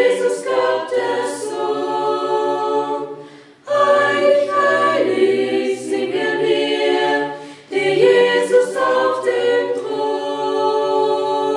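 Small group of young singers singing a cappella in three phrases, with short breaks between them about three and a half and seven and a half seconds in.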